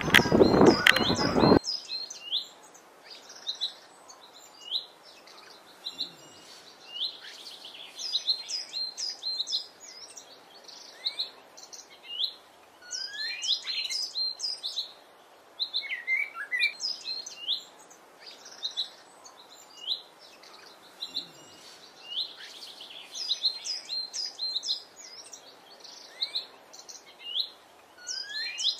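Eurasian blackbird singing: bursts of quick high twittering notes, a few sweeping down in pitch, repeated every few seconds with short pauses between. A loud rushing noise covers the first second and a half and cuts off abruptly.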